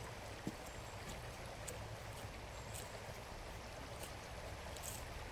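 Steady rushing of a creek, with a few faint light ticks over it.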